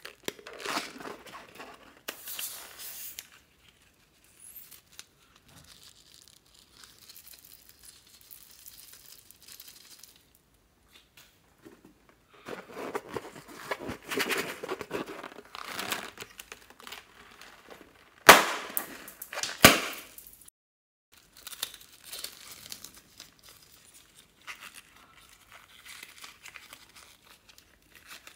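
Rubber balloons squeezed and handled over a bowl of foam beads: irregular crinkling and rustling, with two sharp snaps about two-thirds of the way through.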